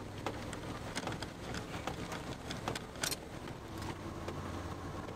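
A chase vehicle driving, heard from inside: a steady low hum of engine and tyres with scattered sharp taps on the vehicle.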